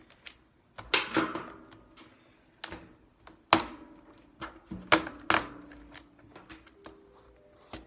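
Plastic retaining clips of a Dell Chromebook 3100's bottom case snapping loose as the case is pried off: a string of sharp clicks and snaps, the loudest about a second in and around three and a half and five seconds in.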